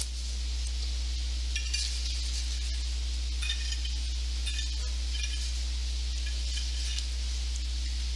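Steady low electrical hum and hiss from the sound system, with a few faint clinks of the altar vessels being handled at the altar.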